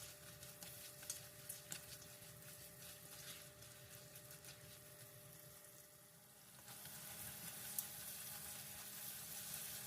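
Faint sizzling and crackling of sliced onions frying in hot oil and butter in a pan.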